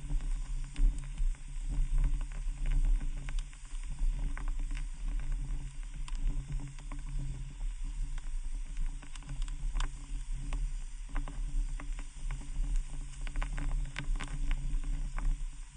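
Wood fire crackling in a fireplace: a steady low rumble and hiss of the flames with frequent sharp pops and crackles scattered irregularly throughout.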